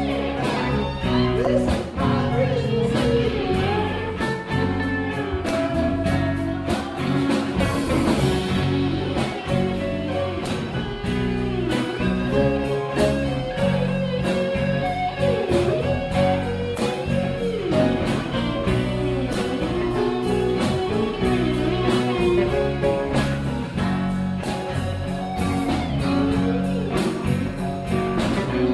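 Blues music played live, led by guitar over a steady beat, with bending, sliding melody lines.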